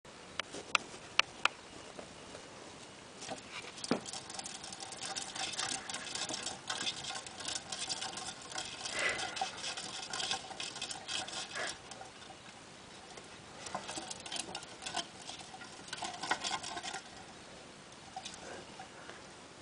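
Small paws pattering and scrabbling on a plastic hamster exercise wheel as two hamsters run and jostle in it, in busy stretches broken by short lulls. A few sharp clicks come in the first second or so.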